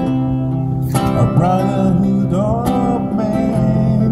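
Live amplified guitar strumming chords, with a man singing a melody into a microphone from about a second in.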